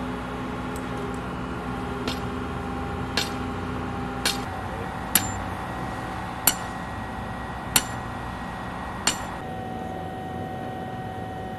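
Sledgehammer blows, seven sharp ringing strikes about one every second and a bit, mostly growing louder, over a steady hum.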